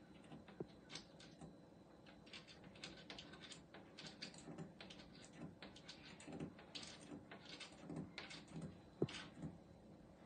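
Faint, irregular clicking and tapping, a few clicks a second, with one sharper tap about nine seconds in.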